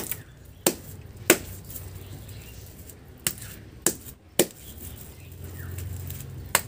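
Ripe palm fruit seeds knocked hard against each other, two sets of three sharp knocks, done to soften the fibrous pulp so it comes away for taler bora batter.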